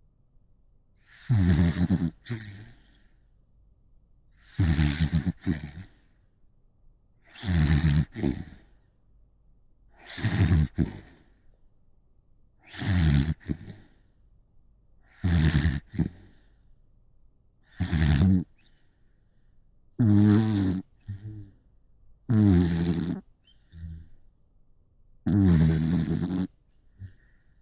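Snoring in a steady rhythm, about ten loud rasping snores, one every two and a half to three seconds.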